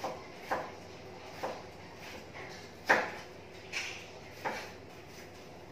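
Steady hum of a running countertop electric oven, with six sharp clicks or knocks at uneven intervals, the loudest about three seconds in.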